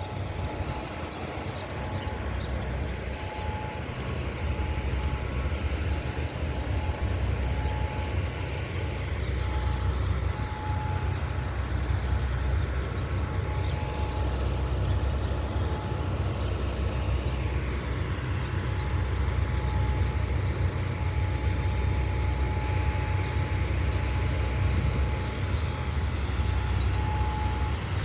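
Distant outdoor warning siren sounding during a test, slowly fading and swelling as it turns, which the filmer takes for a rotating EOW-type siren. A heavy low rumble underlies it throughout.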